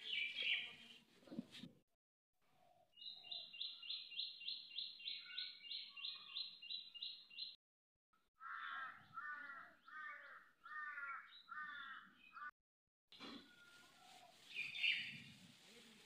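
Birds calling: first a fast, evenly repeated run of high chirps, about three to four a second, then a slower series of lower calls that slide downward, with more chirping near the end. The sound cuts off abruptly to dead silence a few times between these stretches.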